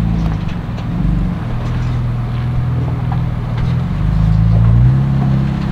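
Jeep Wrangler engine revving up and down under load as it crawls over rock, with a few faint ticks on top.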